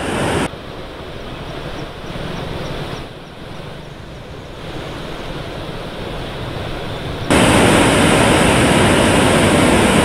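Rushing floodwater: a steady rush of fast-flowing water. Its level shifts abruptly a few times and rises sharply to its loudest and fullest about seven seconds in.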